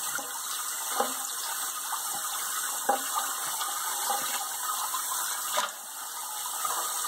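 Kitchen faucet spray running steadily into a sink full of water, a continuous hiss and patter, with a few brief splashes about a second in, near the middle and near the end.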